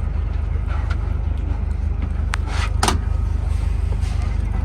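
Tour bus running on the road, heard from inside the cabin as a steady low rumble, with a couple of short rattles or clicks near the middle.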